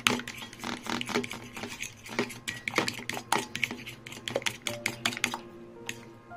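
Metal fork beating egg yolks in a ceramic bowl: rapid, irregular clicking and tapping of the fork against the bowl, thinning out and stopping near the end.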